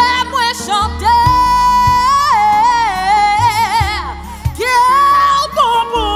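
Gospel song: a woman singing a melismatic, wavering melody with vibrato over a steady bass and keyboard backing.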